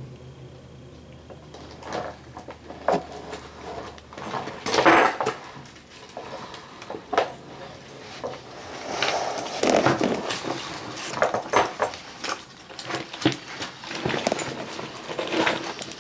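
Irregular scuffling, scraping and light knocks as a Nile monitor moves around in and near its enclosure, loudest about five and ten seconds in.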